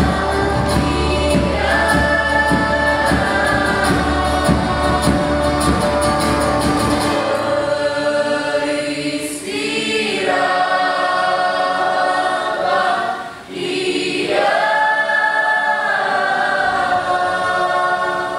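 A choir singing, at first over percussion and a low steady drone. These stop about seven seconds in, and the voices go on alone, pausing briefly twice.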